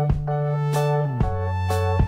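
Instrumental background music: sustained keyboard chords over a held bass note that drops to a lower note about halfway through, with a few drum hits.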